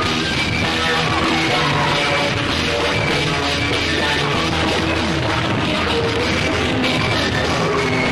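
Experimental art-rock music from a 1982 vinyl LP, playing as a dense, steady mix of instruments.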